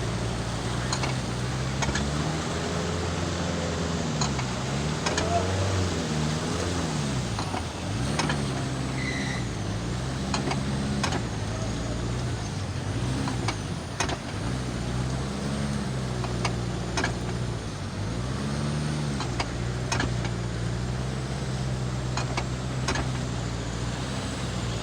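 Car engine running under way, its pitch dipping and rising several times as it is revved and eased off, with scattered sharp clicks over a steady rush of noise.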